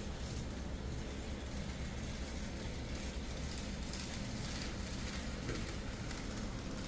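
N gauge model train running along the track: a steady low hum with light clicking as the wheels cross the rail joints.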